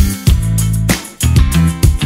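Background music: a plucked, strummed guitar tune with a steady beat.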